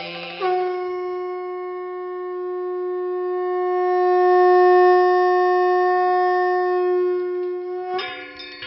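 One long, steady note blown on a wind instrument, growing louder toward the middle and easing off before it stops about 8 seconds in, when bells begin to ring.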